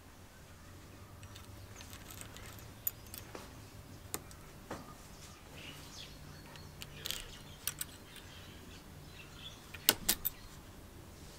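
Small steel parts clicking and clinking as a washer and link plate are fitted onto the pivot bolts of a benchtop metal shear's handle, in scattered light taps with a few sharper clicks about ten seconds in.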